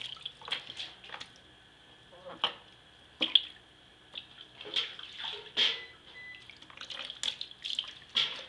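Bathwater splashing and sloshing in a plastic tub as a toddler is bathed, in irregular splashes with a short lull about two seconds in.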